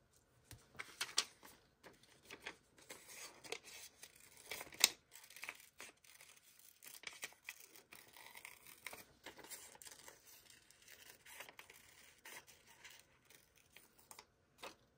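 Paper and sticker sheets handled close up: an irregular run of crackling, rustling paper sounds, with a sharper snap about five seconds in.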